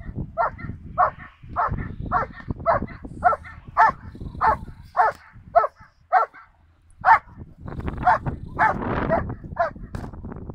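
Rottweiler barking repeatedly at the helper in the blind during protection training, as in a bark-and-hold. The barks are steady and come about two a second, with a short pause about two-thirds of the way through.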